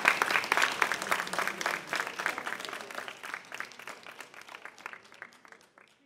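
Audience applauding, a dense patter of claps that fades away over several seconds.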